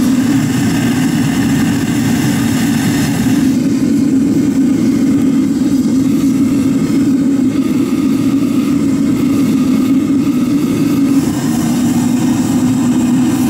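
Gas burner of a metal casting furnace firing steadily, a loud even drone that holds the furnace at a dull red heat.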